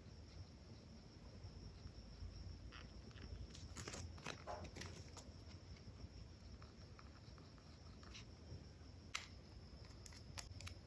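Near silence with faint handling sounds: a few light clicks and rustles, bunched about four seconds in and again near the end.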